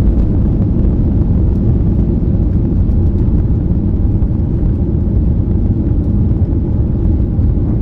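Steady, loud cabin rumble of a Boeing 737-800 at climb power just after takeoff: its CFM56 turbofans and the rush of air, heard from a passenger seat.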